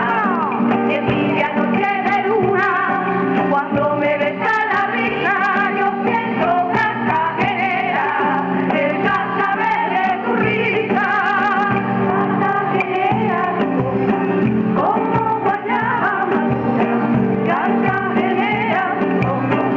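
A women's folk choir singing together with vibrato, accompanied by strummed acoustic guitars and hand strokes on a cajón.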